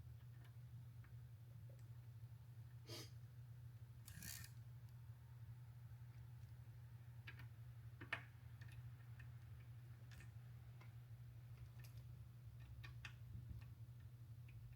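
Near silence over a low steady hum, with faint scattered clicks and two short rustling scrapes of hand tools on metal parts.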